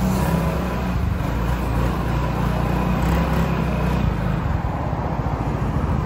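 Yamaha XMAX 250 scooter's single-cylinder engine running steadily with a low, even rumble.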